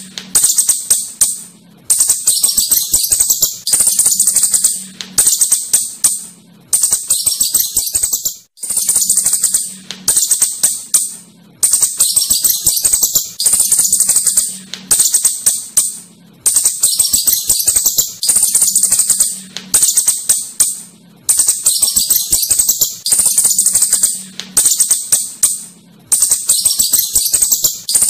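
Asian house shrew giving rapid, high-pitched rattling squeaks in short bursts, a new burst about every second and a half, over and over.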